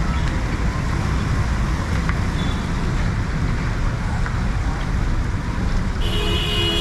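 City street traffic: a steady rumble of passing vehicles, with a short car horn toot near the end.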